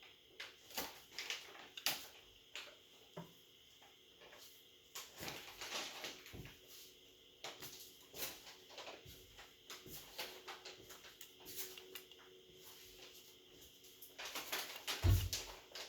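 Irregular small clicks, taps and brief scrapes of a smartphone's parts and repair tools being handled, with a dull low thump just before the end.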